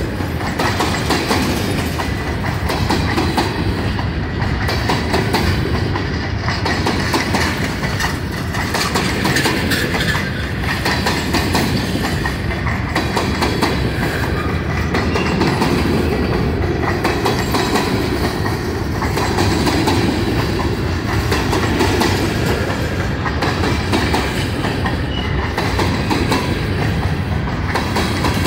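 Empty grain hopper cars of a long freight train rolling past, a loud, steady run of wheels clattering on the rails.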